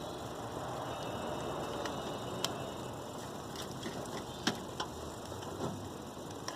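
Scattered light clicks and taps from small door-lock parts being handled and bent by hand, a few sharp clicks over a steady background hiss.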